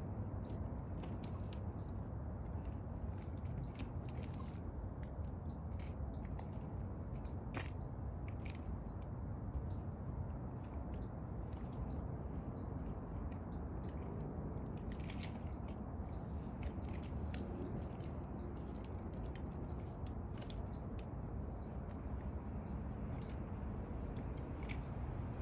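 Small birds chirping, with short high notes repeated over and over, over a steady low rumble.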